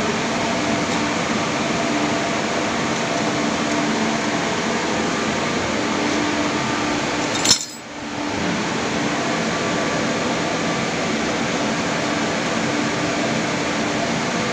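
Steady machinery drone and hiss of a ship's refrigeration and ventilation plant, with faint low hums running through it. A sharp knock comes about halfway through, after which the noise briefly drops away and then returns.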